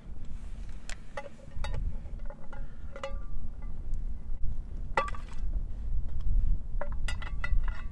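Scattered clinks and knocks of hard objects, some with a short ring, in clusters about a second in, around three and five seconds in, and several in quick succession near the end, over a steady low rumble.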